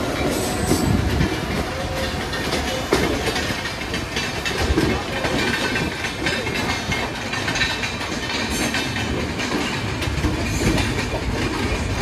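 Ride noise heard from aboard a moving passenger train: steel wheels clattering over rail joints and points, with the coach rattling and a few sharper knocks.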